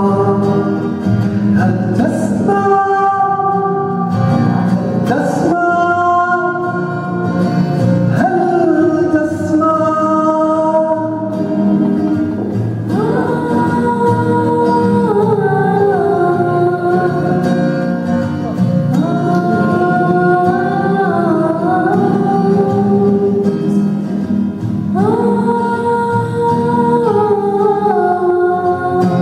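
A girl singing a slow melody in long, held notes, with acoustic guitar accompaniment.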